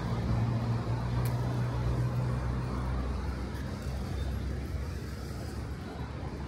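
A motor vehicle's engine running nearby: a steady low hum, strongest for the first two or three seconds and then fading, over street noise.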